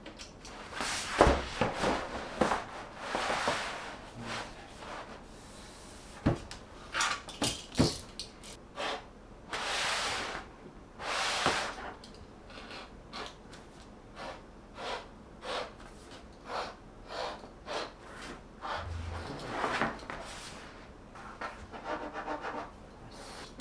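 Rubbing and scraping strokes against the refrigerator's surface, with a few sharp knocks about a second, six and eight seconds in. This is handwork of a sheet-film makeover, such as smoothing adhesive film onto the fridge panels.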